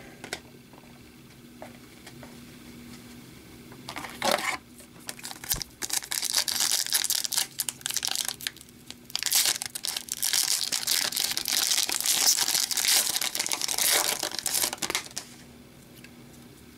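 Plastic trading-card pack wrapper crinkling and tearing as it is opened by hand: a short rustle about four seconds in, then a long stretch of sharp crackling with a brief pause partway, dying away near the end.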